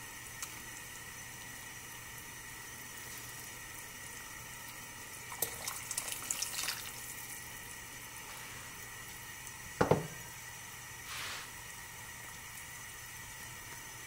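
Chicken soup simmering in a pot with a steady hiss while cornstarch slurry is stirred in with a silicone spatula. A cluster of small clicks and liquid sounds comes about five seconds in, and one loud knock against the pot about ten seconds in.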